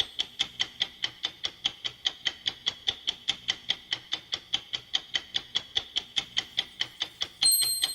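Fast, even clock ticking at about five ticks a second, each tick short and sharp. Near the end a high steady tone comes in over the ticks.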